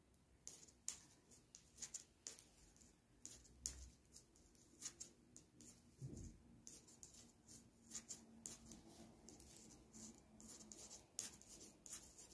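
Faint, irregular clicking and ticking of 3.5 mm knitting needles and the rubbing of yarn as knit stitches are worked, several light clicks a second, with a soft low bump about six seconds in.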